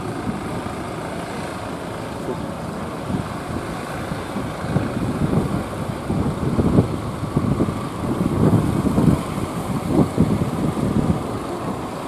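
Fishing boat engines running over the wash of breaking surf, with gusts of wind hitting the microphone from about five seconds in.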